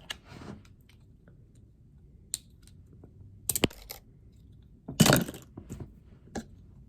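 Plastic LEGO pieces clicking and clattering as they are handled, in a few scattered bursts, the loudest about five seconds in.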